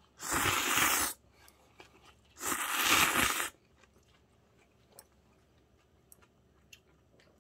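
Ramen noodles being slurped twice, each slurp about a second long and loud, a little over a second apart, followed by faint chewing.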